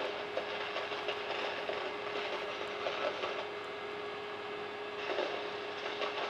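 A video projector running with a steady hum that holds one constant tone, over a haze of fan noise, with faint irregular ticks.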